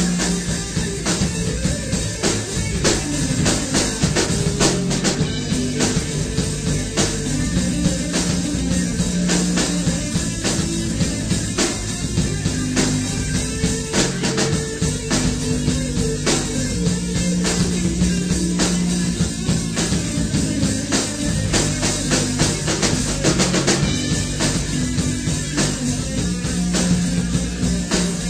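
Raw demo recording of a hard rock band playing, with a drum kit, bass guitar and electric guitar.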